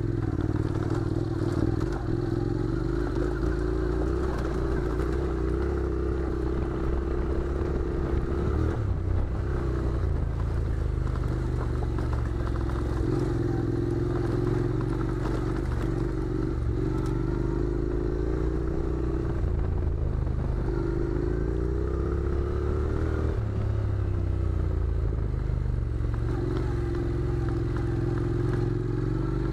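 Honda NC700's parallel-twin engine running at low revs, its pitch rising and falling with the throttle as the bike rides over loose rocky gravel, which clatters under the tyres.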